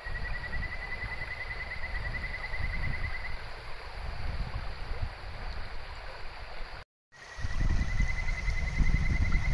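Kajika frog (Buergeria buergeri) calling twice, each call a quick trill of rapid notes near one pitch, rising slightly and lasting about three seconds. The second call begins after a brief gap in the sound about seven seconds in. Beneath it runs the rush of a shallow, rocky stream.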